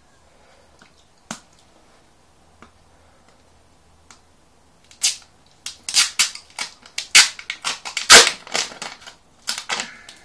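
Plastic tyre-sealant bottle being squeezed and handled: a few faint clicks, then about halfway a rapid run of loud, sharp cracks and pops.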